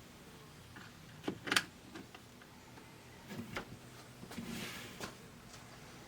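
Small plastic pinball pop bumper parts clicking and tapping as they are handled and set down: a few sharp clicks, the loudest about one and a half seconds in, with a short scrape a little after the middle.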